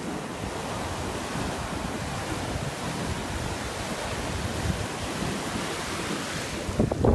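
Sea surf breaking and washing up over a sandy beach, a steady rushing noise, with wind on the microphone and a louder burst near the end.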